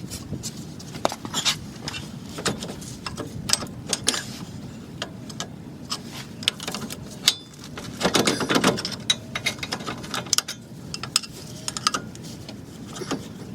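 Metal hand tools and brake parts clinking and knocking at irregular intervals during rear brake work, with a denser run of clattering about eight seconds in.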